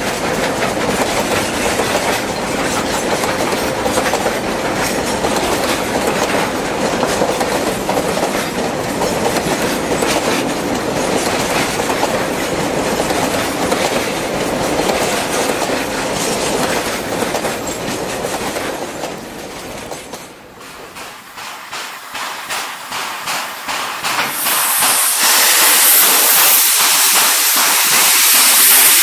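Loaded coal hopper wagons rolling past close by, their wheels clattering rapidly over the rail joints. About twenty seconds in the rumble drops away to scattered clicks, and a few seconds later a loud steady hiss begins: steam blowing from a JS 2-8-2 steam locomotive's cylinder drain cocks.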